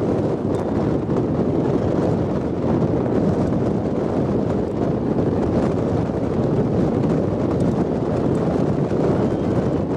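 Steady wind buffeting the microphone: a continuous low rumbling rush with no distinct events.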